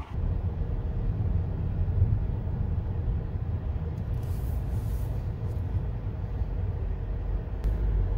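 Steady low rumble of a car's engine and road noise heard from inside the cabin. Brief hisses come about four to five seconds in and again near the end.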